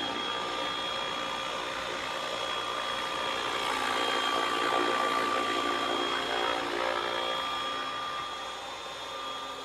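ALIGN T-REX 550X electric RC helicopter in flight: a steady high whine from its motor and rotors. It grows louder about four seconds in and falls off again near the end.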